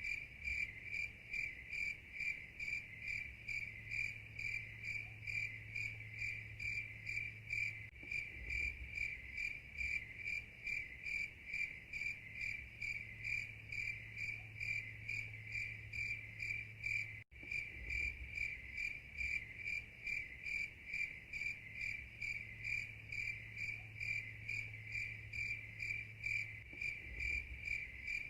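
Cricket chirping in a steady, even rhythm of high-pitched pulses, with a brief break about 17 seconds in.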